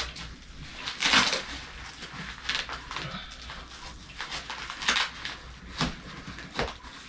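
Velcro (hook-and-loop) strip on a paramotor reserve-parachute pocket being worked over the zipper, with several short bursts of ripping and nylon fabric rustling, the strongest about a second in.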